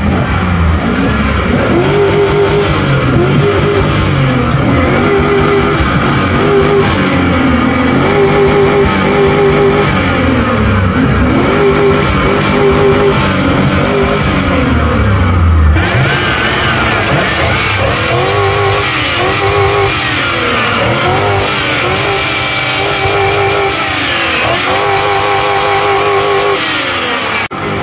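Chevrolet Avalanche's 5.3-litre Vortec V8 being revved over and over, its pitch climbing and dropping with each rev. About 16 s in the sound turns brighter and closer, with the revs carrying on.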